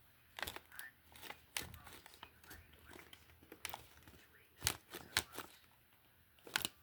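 Cardboard crinkling and scraping, broken by scattered sharp clicks and taps, the loudest a pair about two-thirds of the way in and one near the end.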